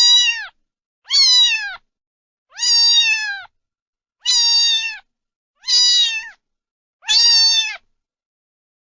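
A cat meowing over and over: six high meows, each falling in pitch at its end, about one every second and a half.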